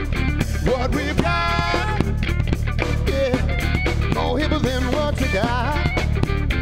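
Live band playing: a drum kit keeping a steady beat under bass guitar and electric guitar, with a man singing into a microphone. A long held note rings out about a second in.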